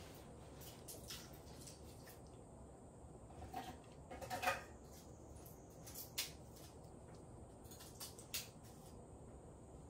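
Faint scattered clicks and light clatter of dishes and utensils being handled while a dog's meal is prepared; a short run of clatters about four and a half seconds in is the loudest.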